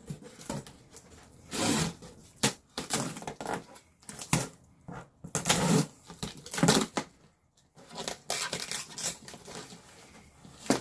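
Sealed cardboard box being opened by hand: tearing, crinkling and handling noises in irregular bursts with sharp clicks.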